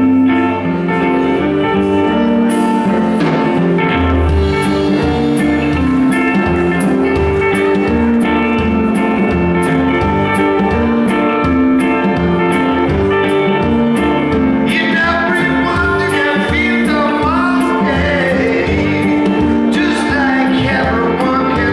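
Live blues band playing: electric guitar, bass, keyboard and drums. Cymbal strokes keep a steady beat from about two seconds in, and a lead line of bending notes rises over the music in the last several seconds.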